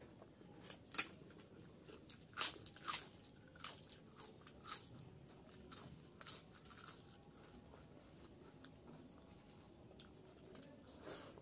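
Close-miked eating: crunchy bites and wet mouth clicks while chewing a handful of rice with a crisp topping. The sharpest crunches fall in the first few seconds, and they thin out to softer chewing after about seven seconds.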